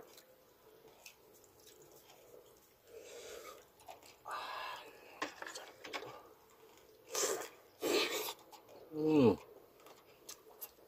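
Close-miked eating of balut (boiled duck egg): soft chewing with several louder wet mouth noises, the loudest a little after seven and eight seconds in, then a short voiced sound falling in pitch about nine seconds in.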